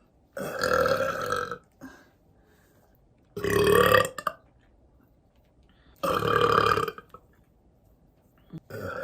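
A woman burping loud on purpose: three long burps of about a second each, a couple of seconds apart, with a fourth starting near the end.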